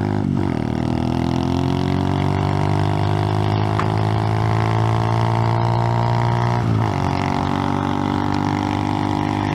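Icebear Champion 125cc minibike's single-cylinder four-stroke engine pulling under way through a cheap aftermarket exhaust. Its pitch climbs slowly for several seconds, drops sharply at a gear change about two-thirds of the way through, then holds steady.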